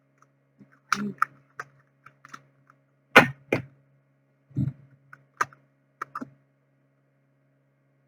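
A handful of irregular clicks and knocks, the loudest about three seconds in, typical of tarot cards being handled and set down on a table, over a faint steady electrical hum.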